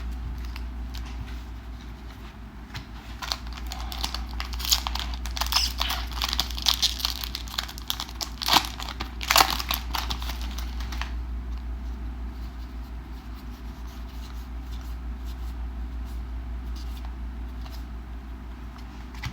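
A Magic: The Gathering booster pack wrapper being torn open and crinkled, with dense crackling for several seconds. After about eleven seconds it gives way to quieter card handling over a low steady hum.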